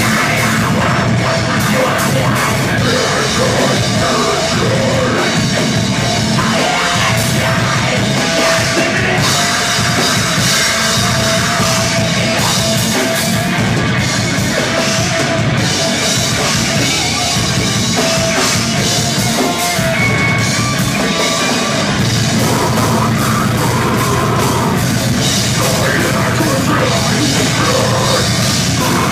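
Metal band playing live at full volume: distorted electric guitars over a drum kit, steady and dense throughout.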